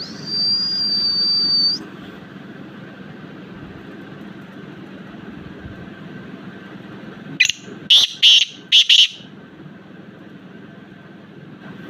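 Caged young black francolin calling: a quick burst of about five loud, harsh notes a little past the middle. It is preceded by a steady high whistle lasting a second and a half or so, with a low steady hum underneath.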